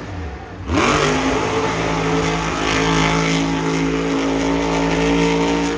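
Monster truck's supercharged V8 engine revving up about a second in, then held at a steady high pitch under full throttle.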